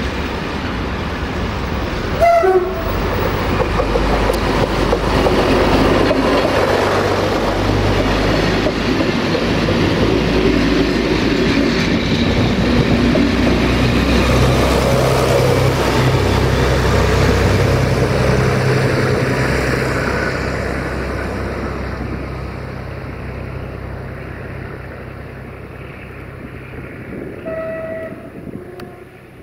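Diesel multiple unit gives a short horn blast, then passes close by with its diesel engine running and wheels rumbling over the rails. It is loudest about halfway through and fades away, with another short horn toot near the end.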